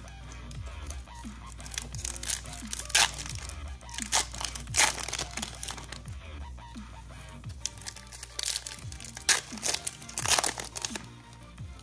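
Foil trading-card pack wrappers crinkling and tearing open by hand, in sharp bursts, over steady background music.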